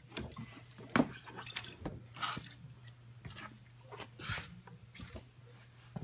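Handling noises in a car's driver's seat: a sharp click about a second in, then rustling and light knocks as a person handles the seat-belt buckle and tools and gets out of the seat, over a steady low hum.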